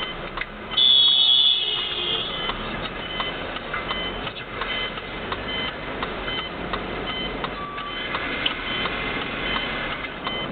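Road and engine noise inside a car driving through city traffic. About a second in, a loud high-pitched tone sounds for about a second and a half, and faint short beeps repeat at a steady pace throughout.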